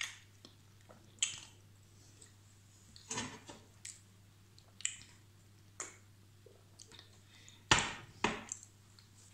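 Small, scattered sounds of someone eating and drinking at a table: soft mouth clicks from chewing a biscuit, a sip from a mug about three seconds in, and two sharper knocks near the end as the mug is put down on the table.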